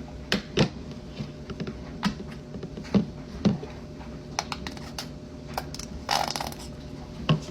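Scattered light clicks and taps from handling food and a sauce container over a plate, with a brief rustling burst about six seconds in.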